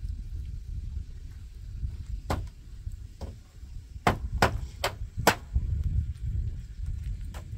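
Hammer blows on the wooden roof boards: a couple of separate strikes, then four quick ones about half a second apart halfway through, and one more near the end, over a steady low wind rumble on the microphone.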